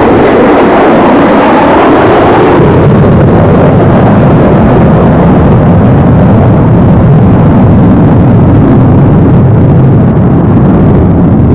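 Concorde's four Olympus 593 turbojets at full thrust with afterburners lit, as the aircraft climbs away in an aborted landing (go-around). Loud, steady jet noise without a break.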